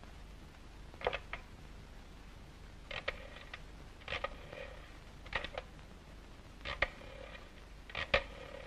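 Rotary-dial telephone being dialled: about six short clicking runs of the dial returning, one per digit, spaced one to two seconds apart.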